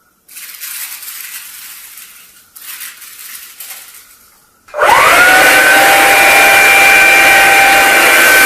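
White rice scattered onto a hardwood floor in two pours, a rattling hiss. About five seconds in, the Hoover Linx cordless stick vacuum switches on, its motor whine rising quickly and settling into a steady high-pitched run.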